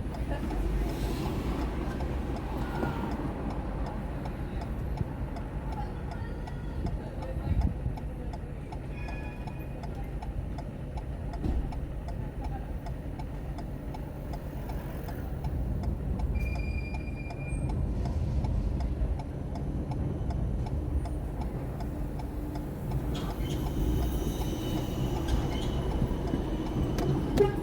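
Car driving through city streets, heard from inside the cabin: a steady low rumble of road and engine noise, with the regular ticking of the turn signal and two short high beeps.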